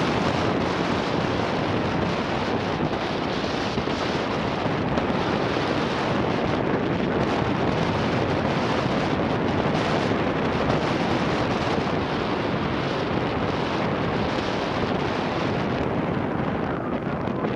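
Wind rushing over the microphone of a helmet- or bike-mounted 360° camera, riding a dirt track at about 35 on the speed readout; a steady, even rush with no engine note standing out.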